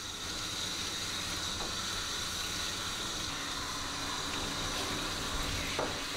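Steady hiss of water running from a hand-held bath sprayer as a wet, lathered cat is rinsed in a stainless steel grooming tub.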